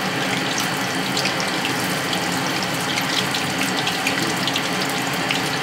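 Breadcrumbed chicken pieces deep-frying in hot oil on high heat, a steady sizzle with many small pops and crackles.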